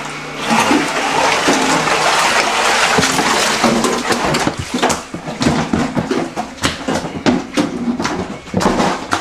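Shallow floodwater, a few inches deep on a house floor, splashing and sloshing as someone wades through it. A continuous wash of splashing gives way about four seconds in to a run of separate, sharper splashes.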